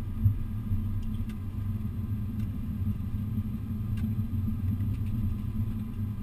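Steady low rumble inside an airliner's cockpit during landing on the runway, with a brief thump just after the start.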